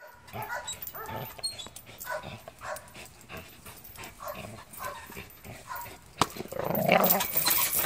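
An American Bulldog gives short whining, yipping calls, roughly two a second, while hanging from a spring pole. A sharp knock comes about six seconds in, followed by a louder, rougher stretch.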